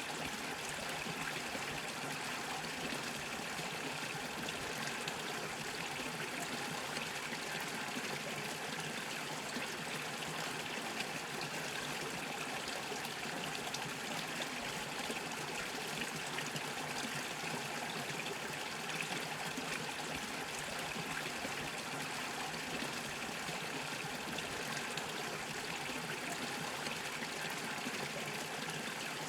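Small mountain brook bubbling and trickling over stones, a steady flow of water with fine gurgles throughout.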